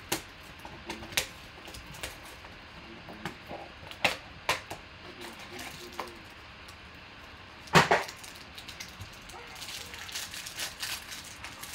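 Cardboard trading-card box being opened by hand: sharp snaps and clicks of the cardboard, the loudest a tearing crack about eight seconds in. Near the end comes a crinkling rustle of a pack wrapper.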